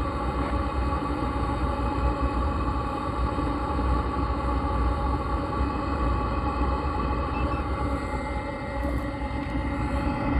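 Webasto Thermo Top C coolant heater running steadily as it warms up: an even whine of its fan motor over a low rumble.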